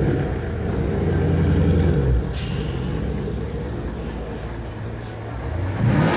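Chevrolet Camaro's engine revving as the car pulls slowly past, rising in pitch and cutting off about two seconds in. A short burst of air hiss follows, then the engine runs more quietly, with a brief rising rev near the end.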